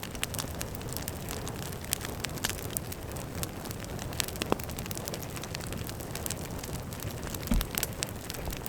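Campfire burning with a steady low rush and frequent irregular crackles and pops from the burning wood.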